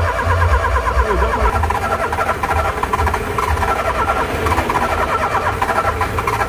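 Car starter clicking rapidly and steadily, the 'tec tec' chatter heard when the key is turned on an engine that fails to start. A low hum sits underneath in the first second or so.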